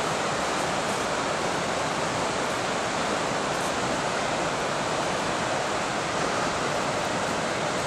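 Fast-flowing river white water rushing steadily, an even, unbroken noise.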